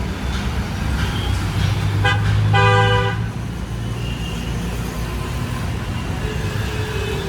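Road traffic with engines running, and a vehicle horn sounding about two seconds in: a few short beeps, then one longer blast.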